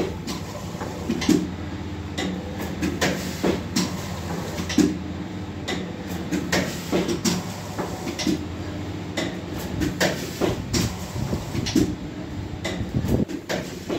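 Pusher-type vertical pouch packing machine running through its cycle as it forms, fills and cuts sachets. Repeated sharp clacks, about two a second and not quite even, sound over a steady motor hum.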